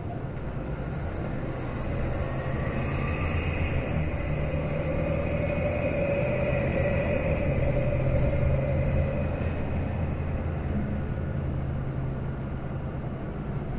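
Volksbus 18.280 OT city bus engine running under way, heard from inside the passenger cabin: a steady low engine hum that grows louder about two seconds in, with a steady high hiss over it.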